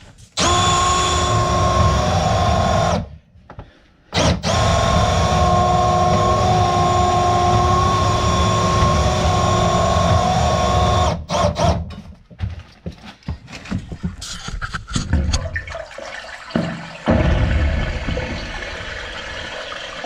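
Electric drain-cleaning machine (sewer snake) running with a steady motor whine as it clears a backed-up main sewer line. It stops about three seconds in and restarts a second later, runs until about eleven seconds, and then gives way to knocks and rattles, with a steady rushing noise near the end.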